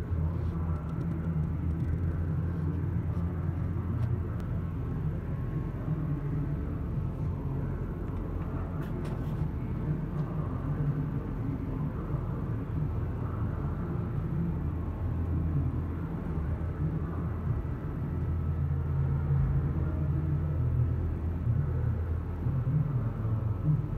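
Steady low hum and rumble of a powered-up CNC lathe idling, its spindle not turning. A few faint clicks sound about nine seconds in.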